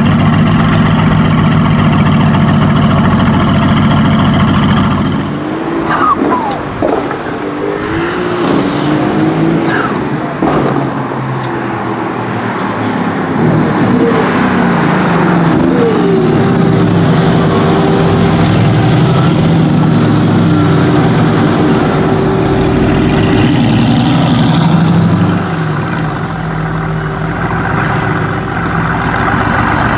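Mercedes-AMG GT S twin-turbo V8, tuned to 760 hp, running loud at steady revs for about five seconds, then revving up and down, its pitch rising and falling, for the rest of the time.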